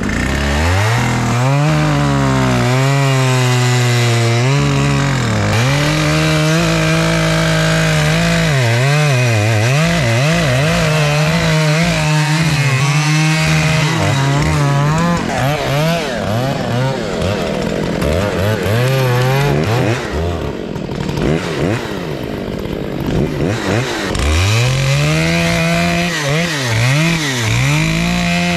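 Gas chainsaw cutting into a thick tree trunk at full throttle, its engine pitch wavering and dipping as the chain bites into the wood. About two-thirds of the way through it eases off, then revs back up into the cut near the end.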